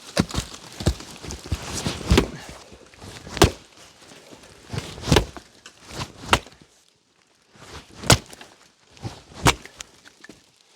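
Chunks of cherry firewood being tossed down one at a time, each landing with a sharp wooden knock, about eight knocks spaced a second or two apart.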